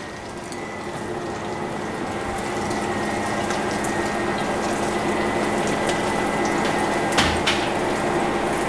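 Tuna-roe fritters frying in hot sunflower oil, a steady sizzling hiss that grows louder over the first few seconds. A couple of light clicks near the end from a metal skimmer against the pan.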